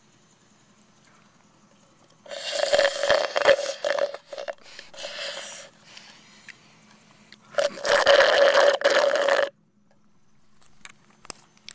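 Loud slurping and rasping through a straw in a plastic cup of Frosty, sucking air and the last of the thick dessert, in two long pulls of a few seconds each.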